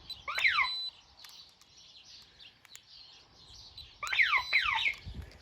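Two short alarm chirps from a DSC PowerSeries NEO security system as its key-fob remote is used. Each is a high steady beep with several quick falling sweeps. This is the siren's brief squawk that confirms the remote has been used.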